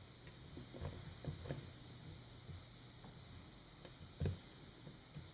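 Faint scratching and small clicks of a lock pick working the pin tumblers inside an older Yale padlock, with a few light ticks between one and two seconds in and a sharper single click about four seconds in.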